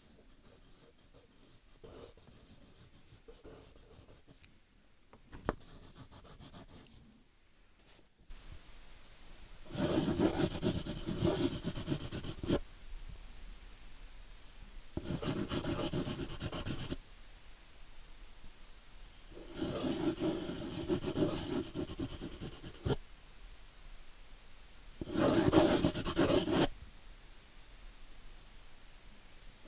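Pen scratching and rubbing across a drawing surface: faint short scratches at first, then four long, louder strokes of two to three seconds each, about five seconds apart.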